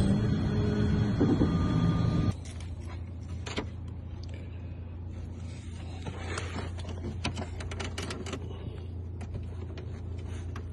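An automatic key-cutting machine running as it cuts a chip key blank, stopping abruptly about two seconds in. After that comes a low steady hum with scattered light clicks.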